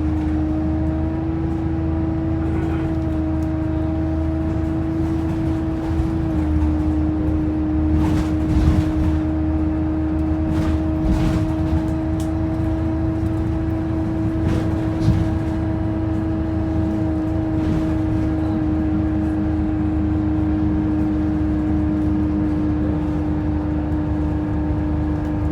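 Optare Versa single-deck bus heard from inside while on the move: a loud steady whine holding almost one pitch over the low engine and road rumble, with a few brief rattles partway through. The whine is plausibly the bus's strange noise.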